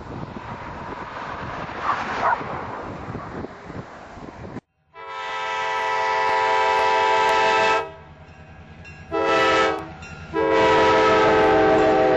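Wind buffeting the microphone over a distant freight train's rumble, then a Wisconsin & Southern diesel locomotive's air horn close by: a long blast, a short blast and another long blast, the end of the long-long-short-long grade-crossing signal.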